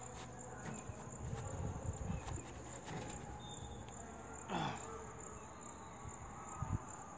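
Insects chirring steadily, with a short voice-like sound falling in pitch a little past halfway through.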